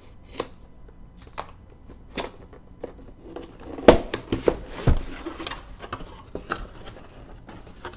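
Cardboard laptop box being opened by hand: a small plastic cutter slitting the tape seal gives a few light clicks and scrapes, then the lid flips open with the loudest knocks and cardboard scraping about four seconds in. Softer rustling of cardboard and paper follows.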